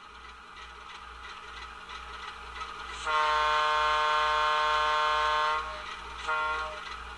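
Model diesel locomotive sound from a QSI Titan DCC decoder's ALCO 244 sound file, played through the HO locomotive's small speaker: the engine sound builds, then a long multi-note horn blast about three seconds in, followed by a short horn toot near the end.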